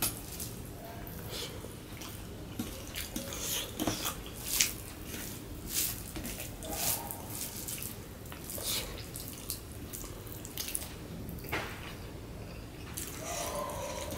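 Fingers mixing rice with bhorta on a steel plate and chewing of hand-fed mouthfuls, making irregular wet smacks and clicks.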